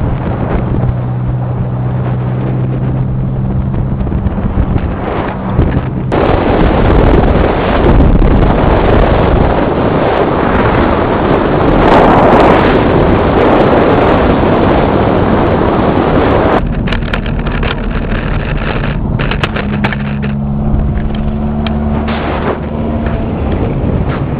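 Volkswagen Baja Bug's air-cooled flat-four engine running as the car is driven off-road. From about six seconds in to about sixteen seconds, heavy wind buffeting on the microphone covers the engine. The engine hum then comes back, its pitch shifting a little as speed changes.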